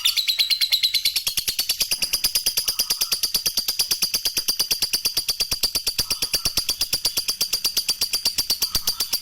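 Lovebird's ngekek song: one long, unbroken, rapid chattering trill of high-pitched notes, held even throughout.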